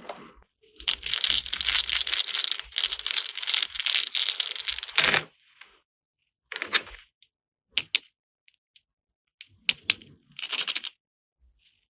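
Small plastic toy parts and packaging being handled: a dense run of rapid clicking and rattling for about four seconds, then a few separate clicks and taps.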